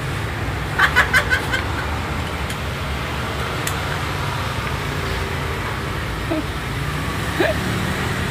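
Steady low rumble of motor traffic, with a short burst of laughter about a second in.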